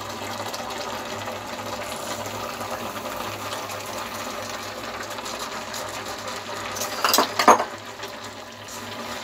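Steady hiss of carrot halwa cooking in an open aluminium pressure cooker on a gas stove while granulated sugar is poured onto it, with two sharp clatters about seven seconds in.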